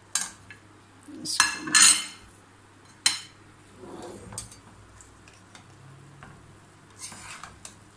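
Steel slotted spoon knocking and scraping against a nonstick pan while mixing cooked sweet rice. A sharp knock comes just after the start, the loudest scrapes about a second and a half in, another knock about three seconds in, and softer scrapes later.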